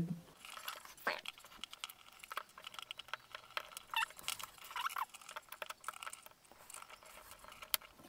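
Light, irregular clicks and scratches of a small screwdriver and screws on a plastic smart-switch housing as its cable clamp is screwed down, with two short squeaks around the middle.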